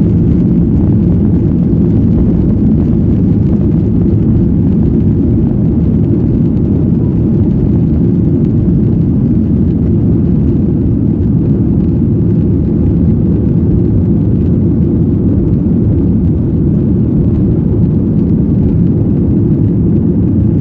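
Cabin noise of a Boeing 737-800 with its CFM56 jet engines at high thrust during departure: a steady, deep, loud rumble that does not change.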